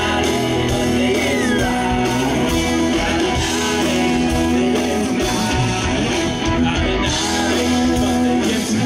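Live country band playing a song: drums, bass and electric and acoustic guitars, with sustained and sliding melodic notes over a steady beat.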